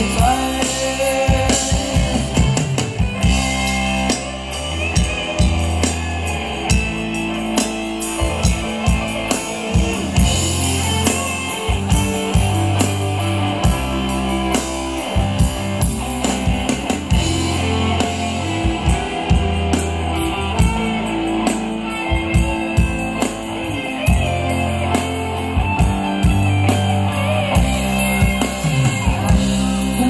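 Live band playing an instrumental stretch of Thai ramwong dance music: electric guitar, bass and drum kit on a steady beat.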